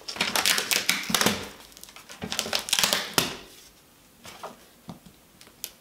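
Parcel packaging being handled and pulled at: a run of short crackling, scraping bursts for about three seconds, then a few faint taps.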